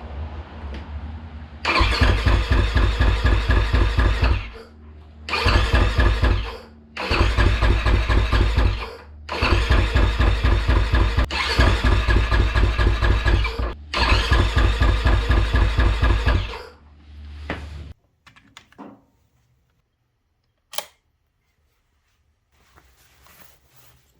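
KTM 500 EXC single-cylinder four-stroke engine being turned over on its electric starter in about six bursts of two to three seconds, each with an even pulsing beat, never catching: the bike cranks but won't start.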